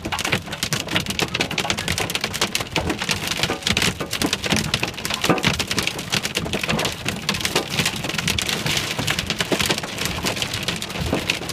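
Heavy rain pounding on a car's roof and windshield, heard from inside the car as a dense, unbroken patter of countless drops.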